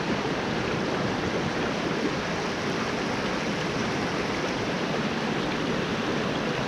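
Steady rush of a small mountain creek running over riffles, an even water noise that holds level throughout.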